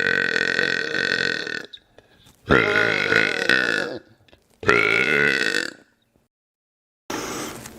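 A man belching loudly: a long burp that stops under two seconds in, then two more burps of a second or so each. After them comes a second of dead silence, and a quieter sound starts near the end.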